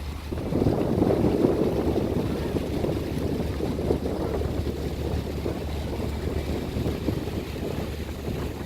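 Wind buffeting the microphone: a steady low rumble that is strongest about a second in.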